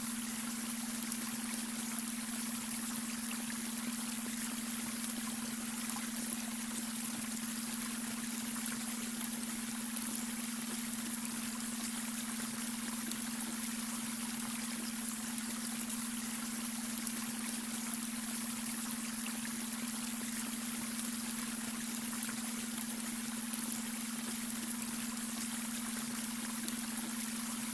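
Babbling brook running steadily, water trickling and splashing over stones, with a steady low hum underneath: the beta-wave brainwave tone mixed into the track.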